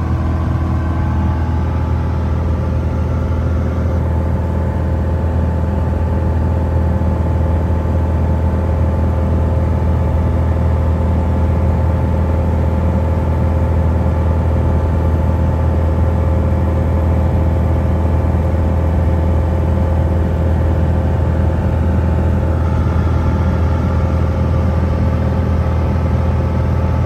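Light aircraft's engine and propeller running steadily in cruise, a constant low drone heard from inside the cabin.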